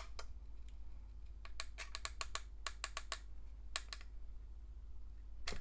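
Metal retention lever and load plate of an AMD AM5 CPU socket being pushed down to lock the processor in: a run of small, light clicks and ticks, with a louder click near the end.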